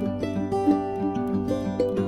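Background music led by a plucked string instrument, a new note struck every half second or so over a steady low tone.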